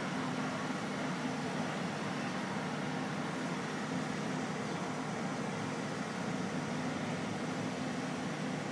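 Mobile crane's engine running steadily under load as it hoists a suspended load, a constant low hum with a noisy wash over it.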